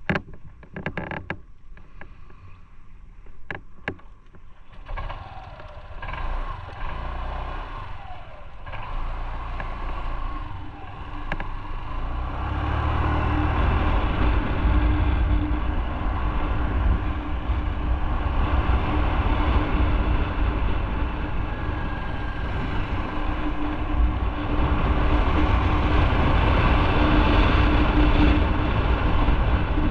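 A few sharp clicks and knocks as a motor scooter is handled at a standstill, then the scooter's engine runs as it rides off. Wind noise and a low rumble build as it gathers speed, with a steady hum from about twelve seconds in.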